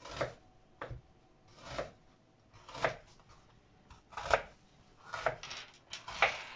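Kitchen knife slicing through a raw onion onto a wooden cutting board, in separate crunchy cuts roughly one a second.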